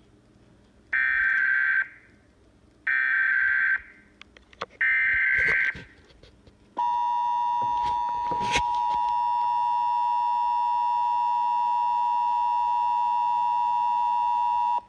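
Emergency Alert System SAME header: three bursts of warbling digital data tones, each about a second long, followed by the EAS attention signal, a steady alarm tone held for about eight seconds. A sharp click cuts through the tone partway along. Together they mark the start of a Child Abduction Emergency (Amber Alert) broadcast.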